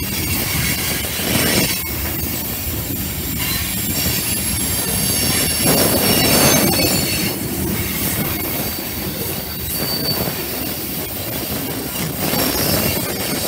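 Freight train of tank cars rolling past on curved track, with a steady rumble and clatter of wheels on rail and high-pitched wheel squeal from the flanges grinding on the curve.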